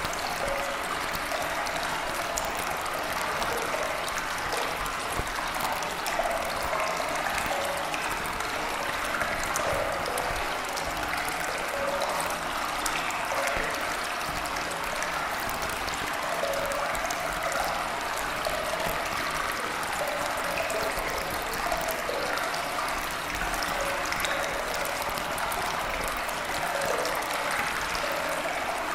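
Steady running water, like a trickling stream, continuous and even with little low end: the masking sound layer of a subliminal affirmation track.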